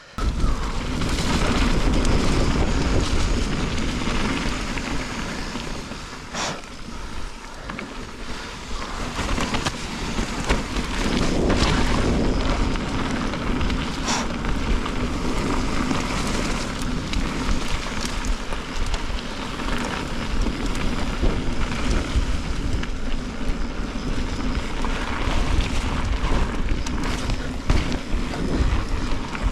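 Wind buffeting the microphone over the rattle and tyre noise of a mountain bike riding a wet, rocky trail, with a few sharp knocks.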